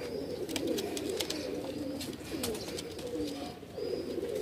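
Domestic pigeons cooing: several low, warbling coos overlapping without a break, with a few faint clicks among them.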